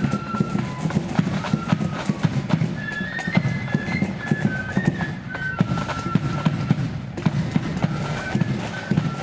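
Marching flute band playing a tune: flutes carry a high melody over rapid snare drum strokes and a heavy bass drum.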